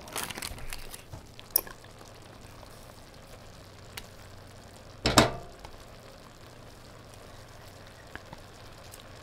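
A spatula scraping a block of cream cheese off its foil wrapper into a pot of spaghetti, with foil crinkling in the first second or so and a single sharp knock about five seconds in. A faint, steady sizzle from the pans on the stove runs underneath.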